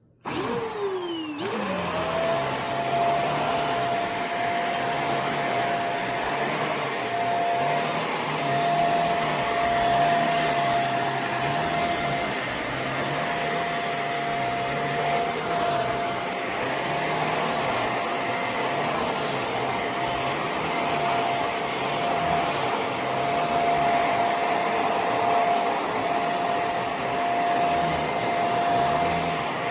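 CFBF handheld mattress vacuum cleaner switched on, its motor spinning up to a steady high whine within about two seconds, then running while vacuuming a couch, with a lower hum that wavers up and down every couple of seconds.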